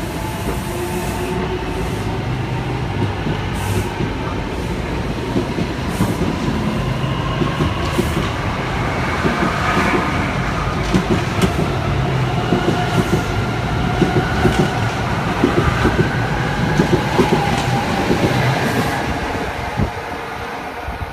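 NJ Transit Arrow III electric multiple unit accelerating out of the station. Its ABB GTO inverters and AC traction motors give off a whine of several tones that climb slowly in pitch, and the wheels click over rail joints more and more often as it gathers speed. The sound falls away near the end.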